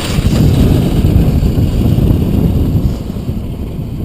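Wind buffeting the camera microphone: a loud, steady low rumble that eases a little about three seconds in.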